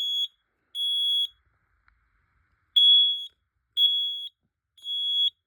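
Smoke alarm sounding in the temporal-three pattern, the standard fire evacuation signal: loud high-pitched beeps about half a second long, three to a group, with a longer pause between groups. The last two beeps of one group are followed, after a pause of about a second and a half, by a full group of three.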